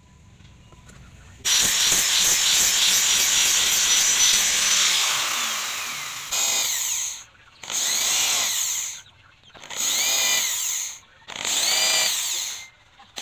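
Handheld electric drill working wood: one continuous run of about four seconds, then four short trigger bursts, each motor speeding up and slowing down again.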